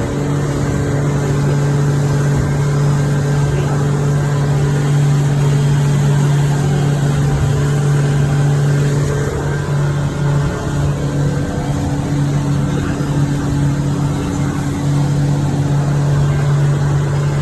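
Motorboat engine running steadily under way: a constant low drone with an even rushing noise over it.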